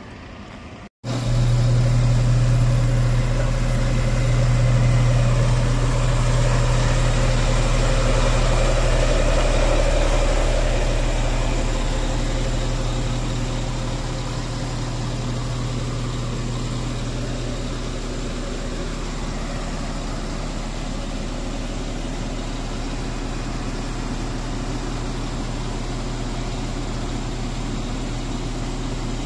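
Shacman heavy truck's diesel engine running steadily with a low, even hum, starting abruptly about a second in. It is driving the hydraulics that tip the sewage tank up.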